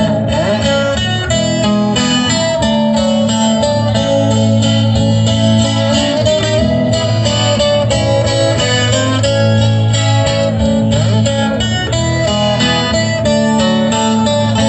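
Live band playing an instrumental passage on acoustic guitars, amplified through a PA, with a steady bass line under a held melody.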